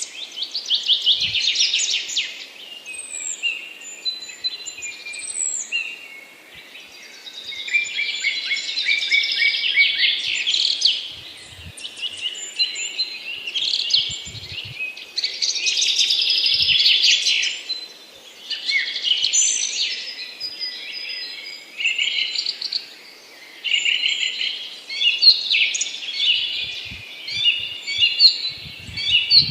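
Small birds chirping and twittering almost nonstop, many short high calls overlapping, with a few brief lulls.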